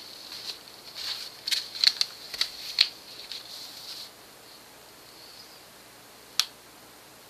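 Packaging rustling with several sharp clicks as a Samsung Rugby phone is taken out of its box and handled, for about four seconds; then quiet apart from one sharp click.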